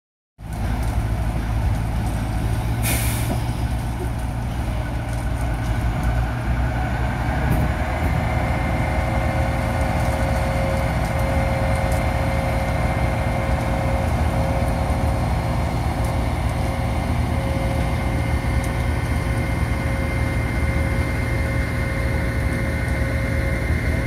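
Diesel engines of concrete mixer trucks running with a steady low rumble. There is a short hiss of air brakes about three seconds in, and a steady whine joins about eight seconds in.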